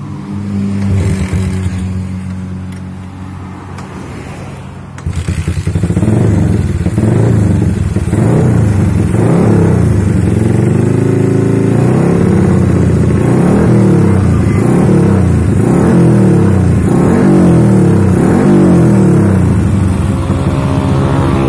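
Bored-up Yamaha Jupiter MX single-cylinder four-stroke, taken from 135 cc to about 160 cc with a TK PE30 carburettor and a CLD stainless aftermarket exhaust, idling for about five seconds and then revved again and again. The pitch rises and falls with each blip of the throttle.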